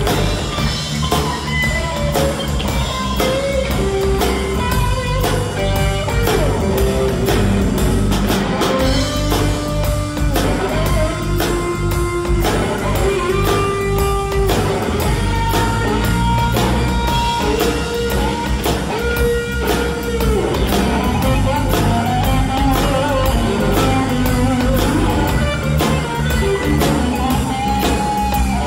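A rock band playing live: electric guitar and electric bass over a drum kit keeping a steady beat.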